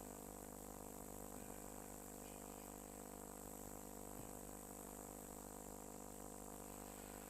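Faint steady electrical hum and hiss, with a thin high whine held throughout; no distinct events.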